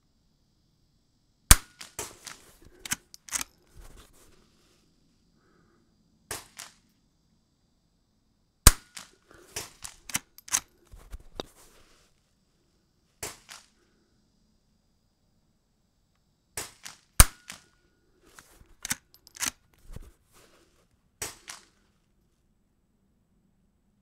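Suppressed .22 LR rifle shots from an integrally suppressed straight-pull bolt-action rifle, fired several seconds apart. Each crack is followed by the metallic clicks and clacks of the bolt being cycled.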